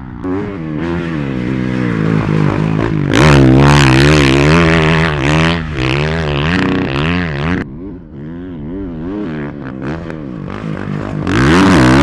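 Honda four-stroke motocross bike ridden hard, its engine revving up and falling back again and again with throttle and gear changes. It is loudest for a few seconds in the middle, drops away, then comes up loud again near the end as the bike passes close.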